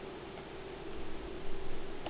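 Steady low hum over a hiss, with a few soft low bumps about halfway through.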